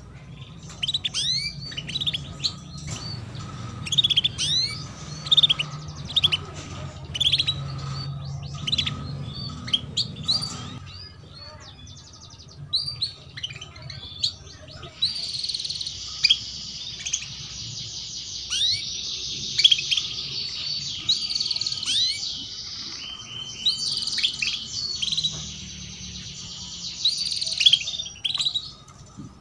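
Domestic canaries chirping in short, sharp call notes. About halfway through, a canary breaks into a long, rolling trilled song that runs until near the end.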